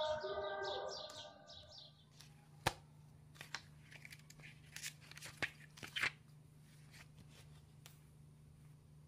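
A siren-like sound with several held tones and fast high chirps fades out over the first two seconds. Then the paper pages and wire spiral of a spiral-bound notebook rustle and click as it is opened and leafed through, over a faint low hum.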